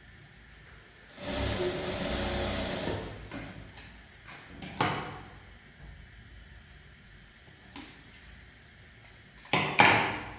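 A scraping or sliding sound lasting about two seconds, then a few separate knocks, the loudest two in quick succession near the end.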